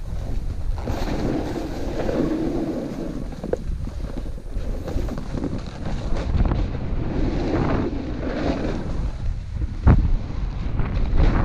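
Wind buffeting a GoPro's microphone while a snowboard slides and carves through soft snow, the board's hiss swelling and fading with the turns. A sharp knock sounds near the end.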